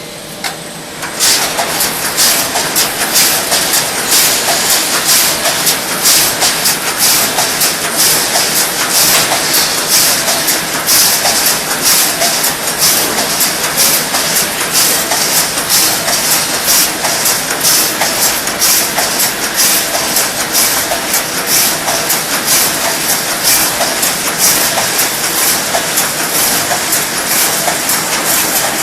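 Wire mesh fence welding machine starting up about a second in, then running with a rapid, even rhythm of welding strokes with a hiss.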